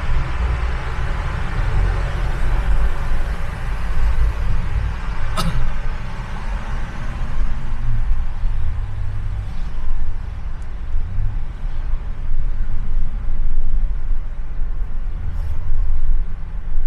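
Road noise from a car driving in city traffic: a steady low rumble with a hiss of tyres and passing traffic that eases after about six seconds. A single sharp click comes about five seconds in.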